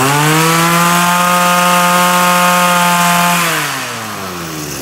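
Robin 26cc brush cutter engine revved up to high speed, held there steadily for about three seconds, then throttled back so the pitch falls to idle about four seconds in. It is running smoothly on test, a sign of a used machine in good order.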